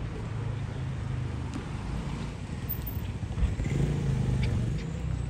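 A motor vehicle engine running, its pitch and loudness rising for about a second past the middle.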